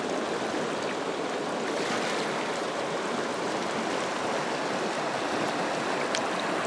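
Swift river rapids rushing over shallow rocks, a steady even rush of water.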